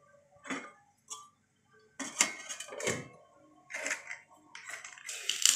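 A steel ladle clinks against a stainless-steel cooking pot, then several loud metal clatters as a stainless-steel lid is set on the pot. A dense hiss builds near the end.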